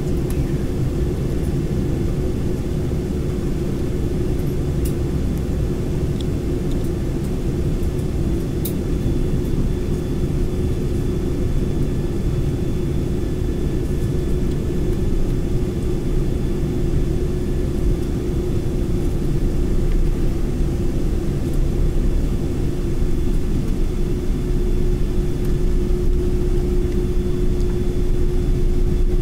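Jet airliner cabin noise while the aircraft rolls on the ground: a steady engine hum over a low rumble, growing louder in the last third.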